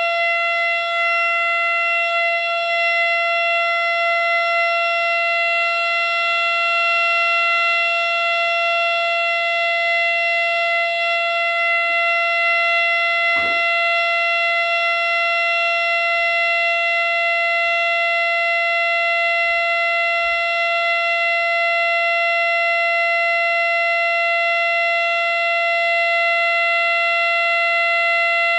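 Miniature 3D-printed Fedelcode Model 7 siren sounding a full alert: one steady, unbroken high tone that holds its pitch at full speed.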